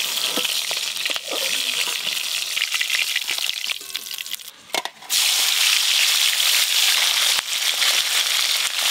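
Turmeric-coated fish pieces sizzling in hot oil in a wok, with a few sharp clinks of a metal spatula against the wok and a steel plate. The sizzle dips briefly about halfway through, then comes back louder.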